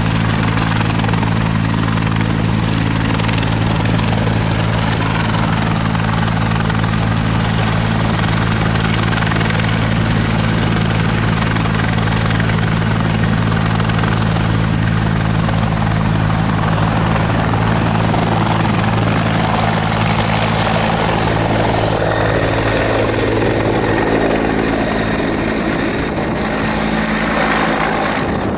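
Bell 412 twin-turbine helicopter running on the ground, a loud steady rotor and engine sound. About two-thirds of the way through it lifts off and climbs away overhead, and the rotor tones waver and drop in pitch.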